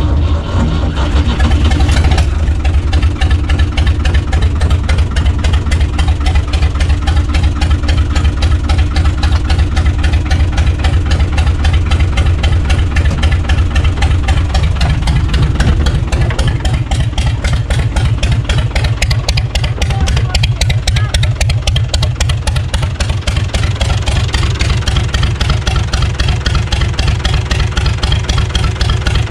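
UTB U445 DT tractor's diesel engine catching on the first start after being laid up, then running steadily at idle, loud and even. The note shifts slightly about halfway through.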